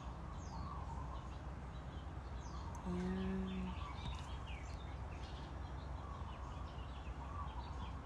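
Small birds chirping over and over over a steady low background hum. About three seconds in, a short, steady low tone is held for under a second.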